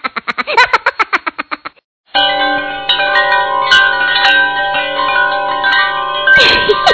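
A rapid pulsing series of short pitched sounds, about ten a second, stops shortly before two seconds in. After a brief gap, background music of sustained chime-like notes takes over. A short noisy burst with a falling sweep comes near the end.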